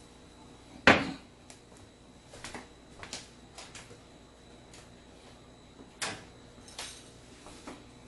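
Kitchen handling noises: a sharp knock about a second in, the loudest sound, then scattered lighter clicks and taps as seasoning containers and cupboards are handled.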